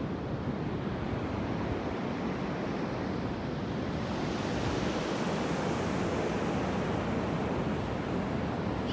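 Surf washing onto a beach, a steady rushing that swells a little about halfway through, with some wind on the microphone.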